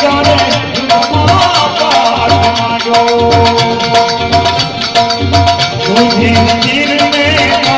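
Music with a steady beat of low drum strokes, about two a second, under held tones and a wandering melody line.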